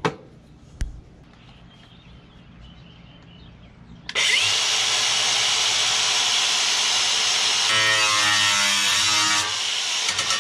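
Two knocks, then an angle grinder starts about four seconds in and cuts into the sheet-steel cover of a breaker panel with a loud, steady grinding hiss. Its pitch wavers in the last few seconds.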